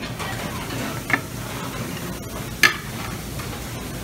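Metal serving tongs clicking against dishes twice, about a second in and again past halfway, over a steady hiss of buffet-room noise.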